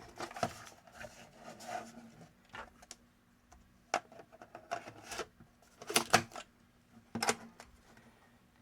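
Scattered plastic clicks and knocks from handling a Polaroid Flip instant camera while a film pack is loaded into it, the loudest a close pair of snaps about six seconds in.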